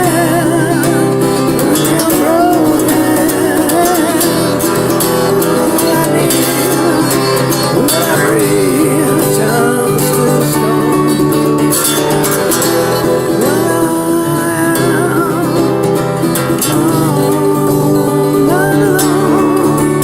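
Live band music with a singing voice over guitar-led accompaniment.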